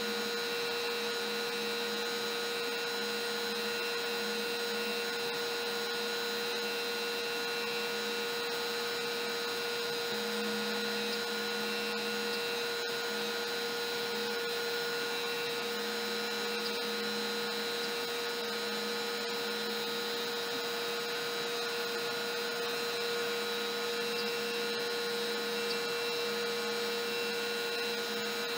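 LowRider v3 CNC cutting MDF: a router spinning a single-flute upcut bit at its lowest speed, with a dust-extraction vacuum running through the hose, giving a steady whine and hum. A lower hum comes and goes every few seconds as the machine moves.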